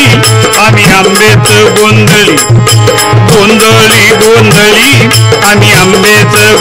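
Marathi folk music: hand drums beat a steady repeating rhythm under a wavering melody.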